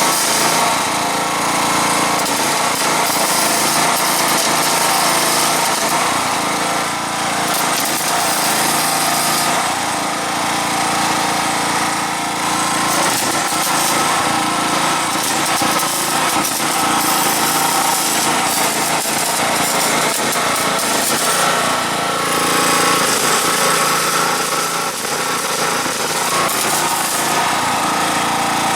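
Welding equipment at work: a steady, loud mechanical buzz with a constant hum that runs without a break.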